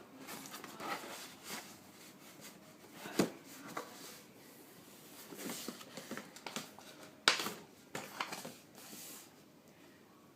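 Toy packaging being handled by hand: scattered rustles, scrapes and clicks, with two louder sharp knocks about three and seven seconds in.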